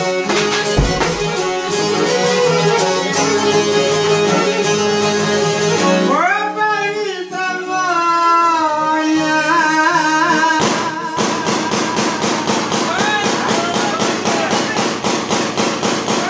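Live Albanian folk music from a small band of violin, accordion and long-necked lute. Partway through, a long wavering melody line rises and is held over the band, then fast, even rhythmic strumming takes over.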